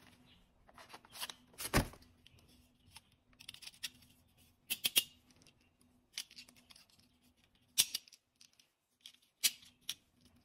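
Sharp plastic clicks and snaps from a gold Desert Eagle-style toy pistol, its magazine and toy shell casings being handled and fitted together, with light handling noise between and a faint steady hum underneath. The clicks come every second or two, with a quick run of three about halfway through.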